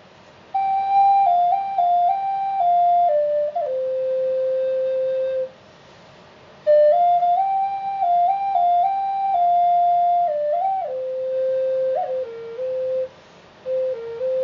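Solo flute playing a slow, calm melody of long held notes with small grace-note turns. Two long phrases are played, with a third beginning near the end, separated by short pauses for breath.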